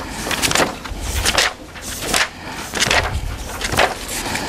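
Pages of a textbook being turned and flipped through, a quick run of papery swishes and rustles.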